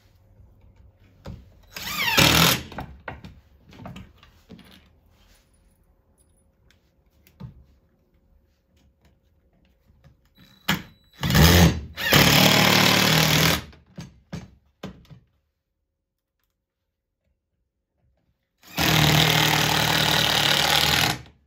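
DeWalt cordless impact driver driving 1¼-inch round-head screws into wood with a rapid hammering rattle, in several bursts: a short one about two seconds in, a few short and longer ones around the middle, and a last long run near the end. Light clicks of handling the tool and screws come between.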